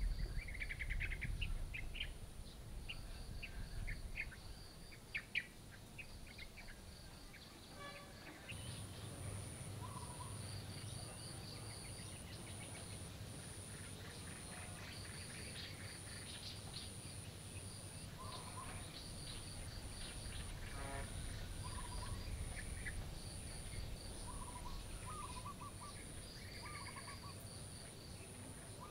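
Small birds chirping and tweeting in short scattered calls, over a low steady background rumble and a faint high-pitched pulse repeating evenly.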